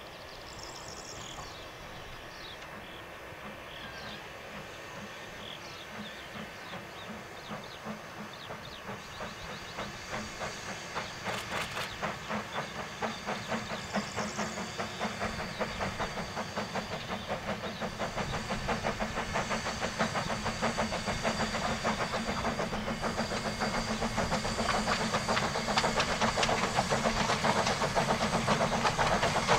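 Narrow-gauge steam locomotive working a passenger train, its exhaust chuffing in a quick, even rhythm that grows steadily louder as it approaches. Birds chirp faintly near the start.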